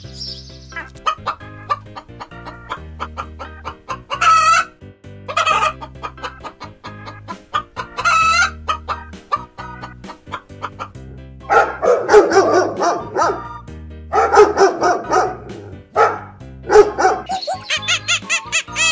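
Chickens clucking and crowing over light background music, with a few loud calls in the first half and longer bouts of calling in the second half.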